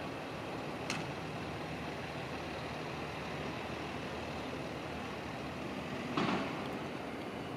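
Heavy diesel engine of a Sperry rail inspection hi-rail truck running steadily as it pulls away, with a sharp click about a second in and a short, louder burst of noise about six seconds in.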